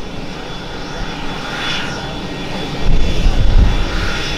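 Steady turbine whine of a parked Boeing AH-64D Apache's auxiliary power unit, running before the main engines are started. Low rumbles of wind on the microphone come about three seconds in.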